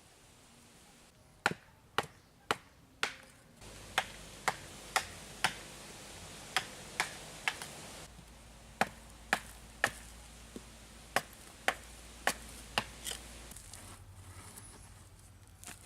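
A series of sharp knocks, like chopping or striking: about nineteen strokes at roughly two a second, in short runs with brief pauses, stopping about thirteen seconds in.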